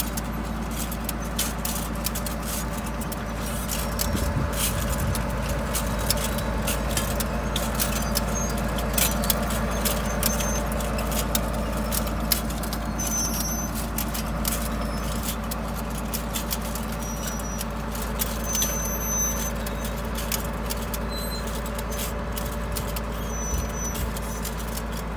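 A tractor engine running steadily as it pulls a Sfoggia Itala vegetable transplanter in work, with frequent irregular metallic clicks and rattles from the transplanter's chain-driven planting units.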